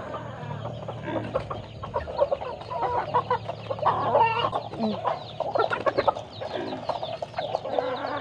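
Several free-range chickens clucking, with many short calls overlapping one another throughout.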